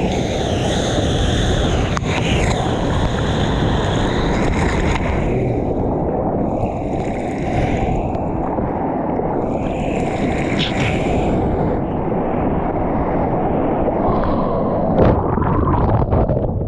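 Seawater rushing and splashing close to the microphone as a surfer paddles a surfboard out through choppy ocean water, with a steady low rumble of wind and water throughout and hissing splashes from the paddle strokes that come and go. Near the end a wave's whitewater washes over, with sharp splashing.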